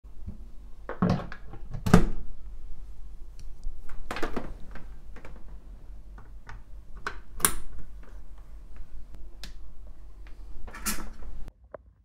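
Handling sounds of a powerline adapter being plugged into a wall socket and an Ethernet cable being connected: a series of clicks and knocks, the loudest about one and two seconds in, over a low steady hum that stops just before the end.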